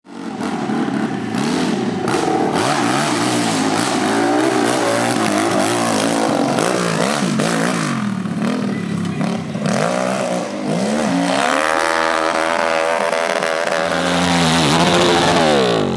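High-powered hill-climb dirt bike engines revving hard as the bikes climb a steep dirt slope, their pitch climbing and dropping again and again. The revving is loudest near the end.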